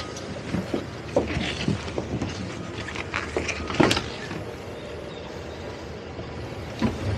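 Towboat's outboard engines idling with a low steady hum, under a series of knocks and thumps from people moving about and handling gear on the boat deck, the loudest about four seconds in and one more near the end.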